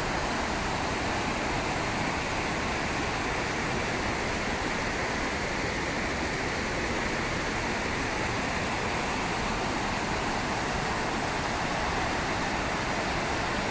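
Muddy floodwater, swollen by heavy rain, pouring over a curved concrete weir and churning downstream in a steady, unbroken rush.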